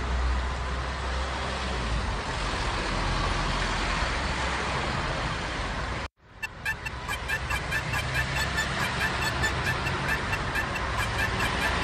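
Steady city road-traffic noise. About six seconds in it cuts out abruptly for a moment, then returns with a fast, even ticking pattern of about five ticks a second and faint high tones, growing slowly louder.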